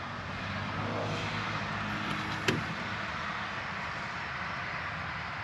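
Steady outdoor background noise with a single sharp click about two and a half seconds in.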